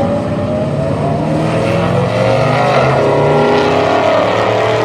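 Loud car engine accelerating, its pitch rising for about three seconds and then holding steady, over the low rumble of other running engines.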